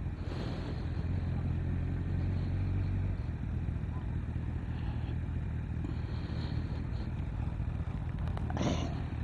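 Honda CBF 1000 inline-four motorcycle engine running at low revs with a steady low note, the bike moving slowly; a short hiss comes near the end.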